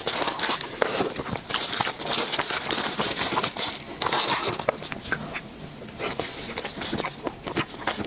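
Close-miked eating sounds: irregular chewing with wet, sticky mouth clicks and smacks.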